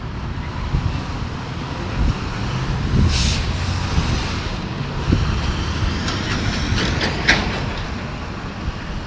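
Downtown street traffic: a low rumble of passing cars and heavy vehicles, with a short hiss about three seconds in and a few sharp clicks around seven seconds.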